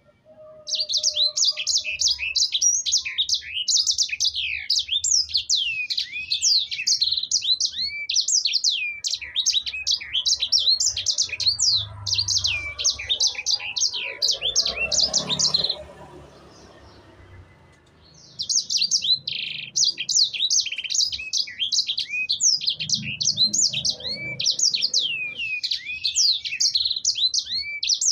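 A sanger songbird singing a fast, continuous song of sharp, high sweeping chirps and trills, several notes a second. The song breaks off for about two seconds past the middle, then starts again just as fast.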